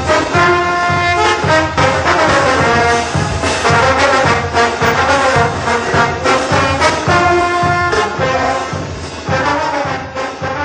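Bolivian brass band playing a morenada: sousaphones, trumpets and trombones in full chords over a steady bass-drum and snare beat. The music fades out near the end.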